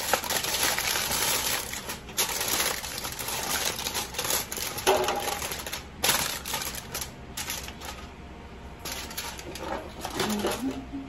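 Sheet of aluminium foil crinkling and crackling as it is crumpled and pressed into a disposable foil pan, in several bursts with short pauses, loudest in the first few seconds.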